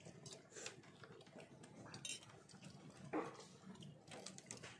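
Faint sounds of a meal eaten by hand: small clicks and clinks of plates and food, with one short cry about three seconds in.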